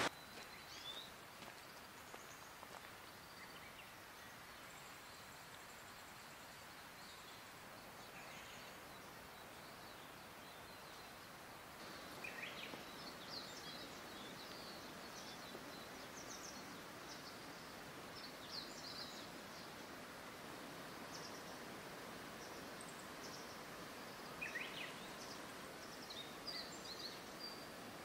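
Faint outdoor ambience with small birds chirping and singing now and then, a few clearer calls about halfway through and again near the end.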